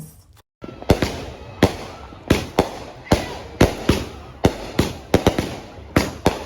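Fireworks going off: an uneven string of sharp bangs, about two a second, over a constant crackling hiss. It starts about half a second in.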